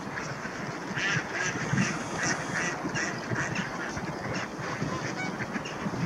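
A crowded flock of mute swans and mallard ducks calling over one another: a busy chorus of quacks and short honking calls, thickest in the first half.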